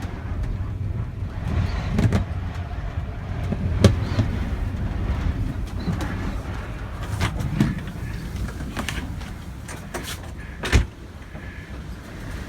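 Strong gusting wind buffeting a small building heard from inside: a steady low rumble with bangs and rattles every few seconds, a sharp one about four seconds in and another near eleven seconds.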